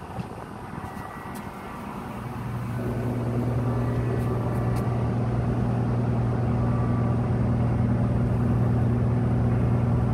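Ship's machinery hum that swells in about two seconds in and then holds steady and low-pitched.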